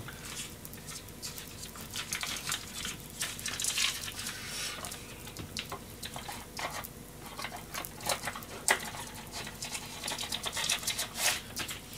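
Butter sizzling in a frying pan under a sandwich frying slowly on low heat, with irregular small crackles and pops over a faint steady hiss as the bread crisps.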